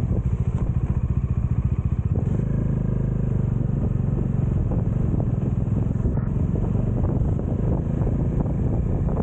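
Bajaj Dominar's single-cylinder engine running with a fast, even pulsing beat at low speed. About two seconds in it turns into a smoother, steadier note as the bike gets under way.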